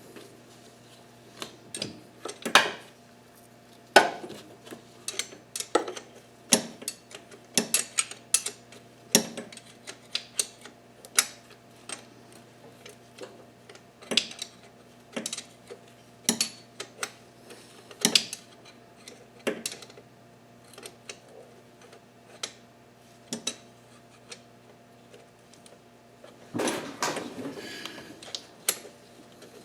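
Hand tools and metal parts clinking and clanking irregularly while bolts and brackets for a power steering pump are worked on, with a longer rattling stretch near the end. A faint steady hum runs underneath.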